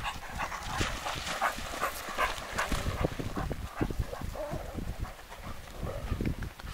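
Dogs panting close by for the first few seconds, short breaths about twice a second, over soft low thuds of footsteps on sand.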